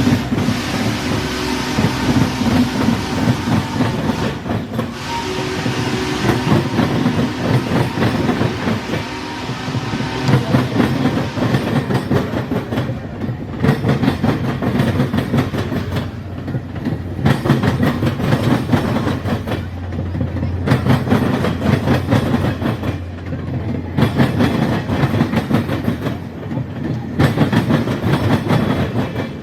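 Railroad cars rolling past close by, steel wheels clicking over the rail joints in a steady clickety-clack that lasts throughout.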